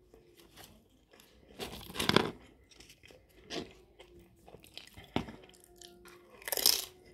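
Close-miked eating sounds: chewing with several crunchy bites, the loudest near the end as a guacamole-dipped tortilla chip is bitten.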